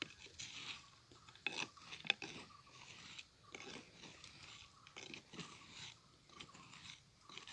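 Wooden stick poking and scraping in loose, dry crumbly soil at a burrow mouth: irregular crunching and scratching with a few sharp clicks, the sharpest about one and a half and two seconds in.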